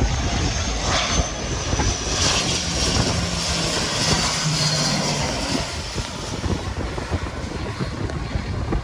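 Airplane engines on a landing approach. A high whine slowly falls in pitch over a steady low rumble.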